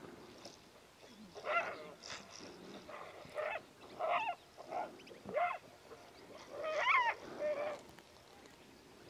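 A run of about eight short, pitched animal calls from Ethiopian wolves and honey badgers in a fight, some bending up and down in pitch, the loudest about seven seconds in.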